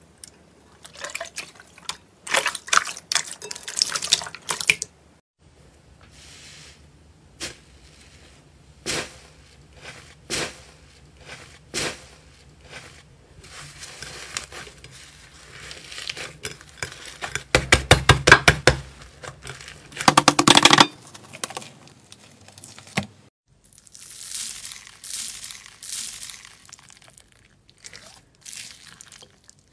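Slime being worked by hand in a bowl: irregular wet squelches, sticky pulls and popping clicks in short bursts, loudest in a run of squelches about two-thirds of the way through. Near the end, crackling and crunching of foam beads mixed into black slime.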